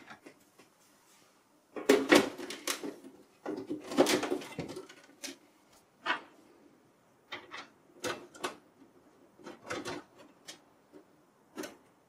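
Desktop computer case being closed: the plastic fan duct pressed into place over the CPU cooler and the metal cover put on and slid shut, a run of clicks, knocks and scrapes. The busiest clatter comes about 2 and 4 seconds in, followed by scattered lighter clicks.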